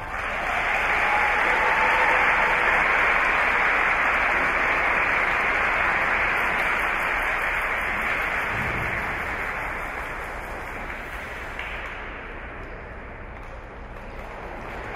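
Audience applauding after the program music ends, the clapping slowly dying down over the last few seconds.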